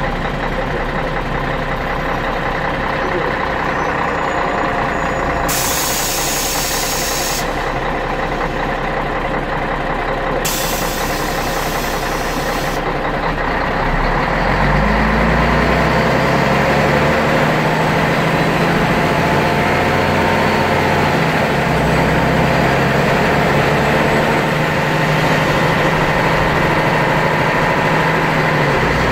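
Scania DSC 11.71 six-cylinder diesel of a city bus heard from inside the cabin. It runs steadily at first, with two short bursts of hiss. About halfway through it gets louder and its note rises as it pulls under load, and it keeps running harder to the end.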